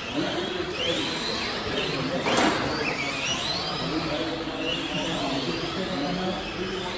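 Electric motors and gears of Tamiya RC racing trucks whining, rising and falling in pitch as the trucks speed up and slow round the track. A sharp knock about two and a half seconds in.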